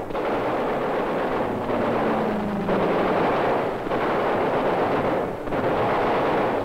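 Flying-boat turret machine guns firing in several long bursts, with brief breaks between them.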